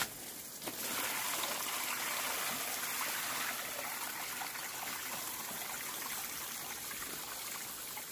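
Water running and trickling steadily, rising just under a second in and then holding even.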